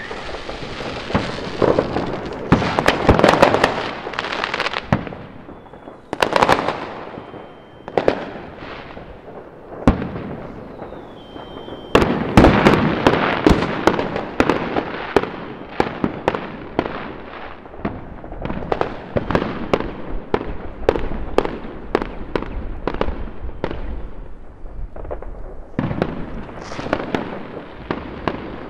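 Many fireworks going off at once and overlapping: a continuous run of bangs and crackling pops. The loudest burst comes about twelve seconds in.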